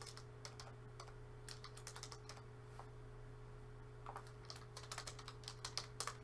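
Computer keyboard typing in short irregular runs of keystrokes, faint, over a low steady hum.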